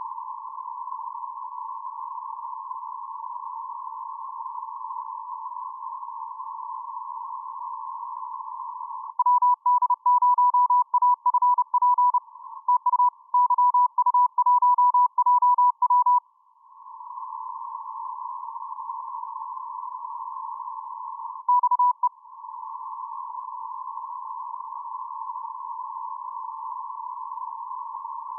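Morse code (CW) received on the 10-metre amateur band through a narrow receiver filter: a steady hiss, then, about nine seconds in, about seven seconds of keyed dits and dahs in a single beeping tone, louder than the hiss. One more short tone comes about two thirds of the way through.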